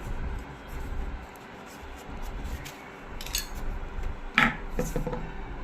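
Small metal sewing-machine parts being handled and rubbed clean, with a few light clinks and knocks in the second half.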